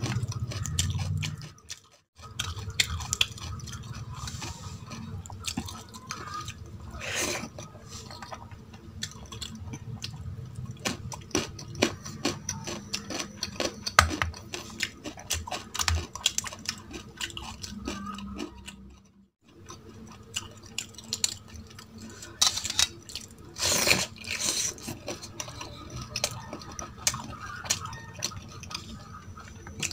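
Close-miked eating sounds: chewing and wet mouth smacks on spicy chicken curry with rice, with occasional clinks on the plate. The sound drops out briefly twice.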